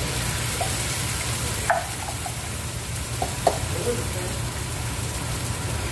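Onions frying in hot oil in a non-stick frying pan sizzle as tomato purée is poured in. The hiss brightens as the purée lands, and a few light knocks come about two and three and a half seconds in.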